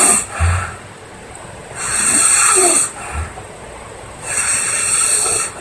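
A woman snoring heavily, with loud hissing breaths about every two and a half seconds. Two of the breaths are followed by a short low snort.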